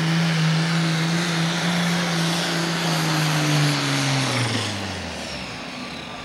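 Pro Stock pulling tractor's turbocharged diesel engine running flat out under load, dragging the sled. About four seconds in, the engine speed falls away in a long downward slide and the sound gets quieter.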